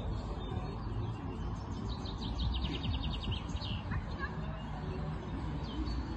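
Small songbird singing a quick trill of about ten high notes near the middle, with a couple of short chirps after it, over a low steady outdoor noise.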